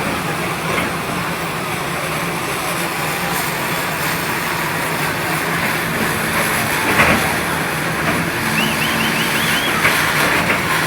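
Steady outdoor traffic noise, with a single knock about seven seconds in and a warbling high tone near the end.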